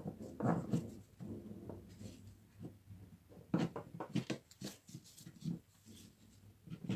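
Irregular knocks, clicks and light scrapes of small tool parts being handled on a workbench, a few sharper ticks among them about a second in and again around three and a half to five seconds.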